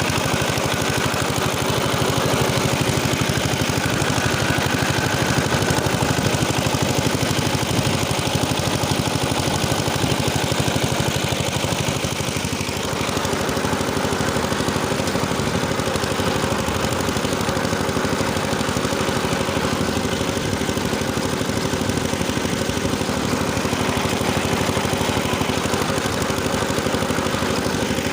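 Engine of a rotary tiller rig running steadily under load while tilling soil, with a slight shift in its note about halfway through.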